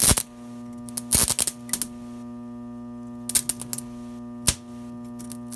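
Modified microwave oven transformer, its secondary rewound as two turns of thick cable, humming steadily at mains frequency while a small nail shorted across the output leads crackles and spits with arcing. The crackles come in bursts: at the very start, around a second in, and around three and a half seconds in.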